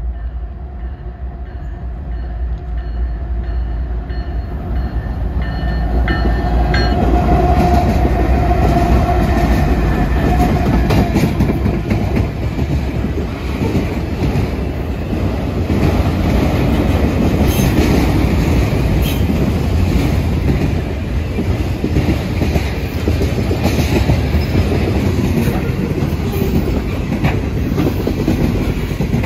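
Mixed manifest freight train passing at speed. Its rumble builds over the first several seconds, then holds steady as the cars roll by with the wheels clacking over the rail joints.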